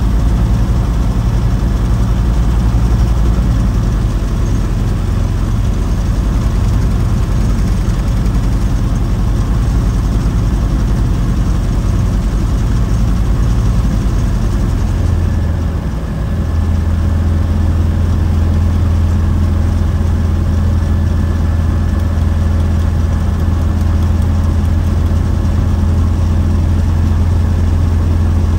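Light aircraft's piston engine and propeller running at low power, heard from inside the cockpit. A little past halfway the sound dips briefly, then settles into a steady, slightly higher-pitched hum as the engine speed changes.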